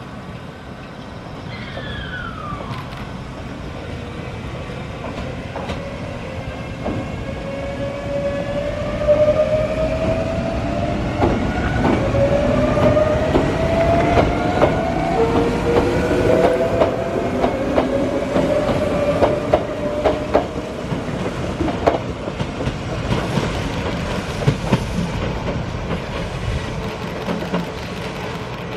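Yoro Railway 7700-series electric train pulling away and accelerating past. Its VVVF inverter and traction motors give a whine that rises in pitch several times over, with wheel clacks over the rail joints. It is loudest midway as the train passes, then eases as it draws away.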